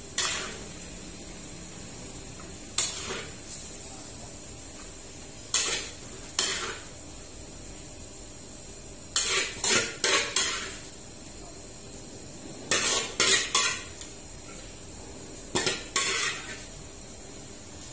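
Metal ladle scraping and clinking against a steel wok and a metal plate while ladling wet braised chicken out of the pan, in short clusters every few seconds.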